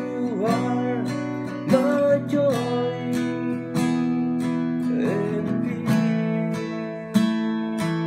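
Acoustic guitar strummed in a steady rhythm, chords ringing between strokes. A voice sings along in places.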